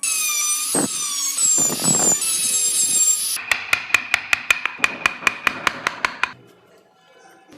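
Woodworking tool sounds: a loud, high-pitched power-tool whine with a few knocks, falling slightly in pitch, that cuts off about three and a half seconds in. It is followed by rapid, even tapping at about six strikes a second, each with a ringing note, which stops about six seconds in.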